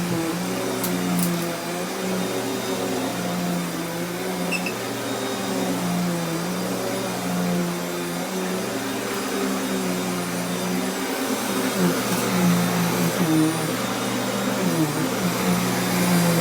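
Sharp Twin Energy 9-amp upright vacuum cleaner running steadily, a motor hum with a rushing of air. Its pitch wavers slightly and becomes less even over the last few seconds.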